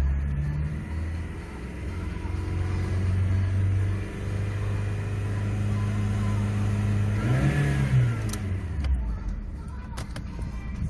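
Rover 25 petrol engine running, revved up briefly and let fall back about seven seconds in, with a few sharp clicks near the end. The engine is said to have a knock.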